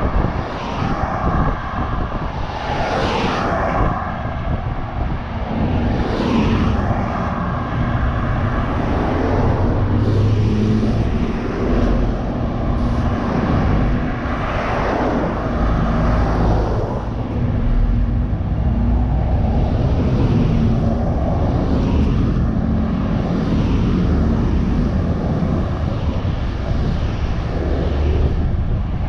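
Scania bus on the move, heard from a camera mounted on the outside of the body: a steady rumble of engine and tyre noise with wind on the microphone. Other vehicles swish past several times.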